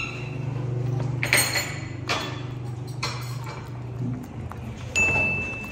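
Tableware being cleared: a few short knocks of a bowl and spoon, then one clear ringing clink about five seconds in. A low steady hum runs underneath and stops about four seconds in.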